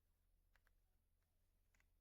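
Very faint keystrokes on the Royal Kludge R75 mechanical keyboard: two key presses about a second apart, each a quick double click, over a low steady hum.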